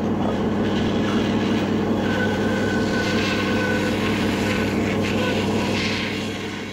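Electric hand planer running and cutting along a wooden beam: a steady motor hum with the rasp of the blades, a thin high whine in the middle, dying away near the end.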